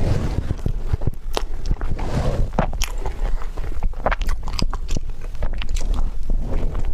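A person biting and chewing tiger skin roll, a soft rolled sponge cake with pork floss sauce, close to the microphone: wet mouth sounds with many irregular sharp clicks.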